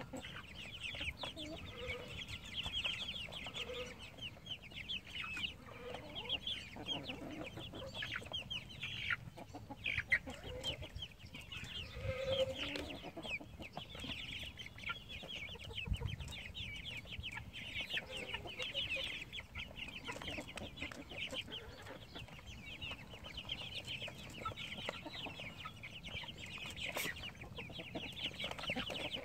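A flock of young white meat chickens peeping continuously in short, high calls, with an occasional lower cluck.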